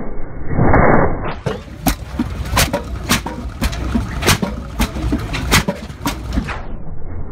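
Delmag F5 explosion rammer running, about eight sharp bangs roughly two-thirds of a second apart as it fires and hops on the ground, over a low rumble. A rushing noise comes first, before the bangs begin.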